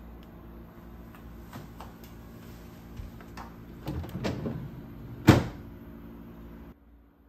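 A small under-counter fridge being opened and handled: light clicks and rattles from its door and plastic bins, then one sharp clunk a little after five seconds in as the door is shut.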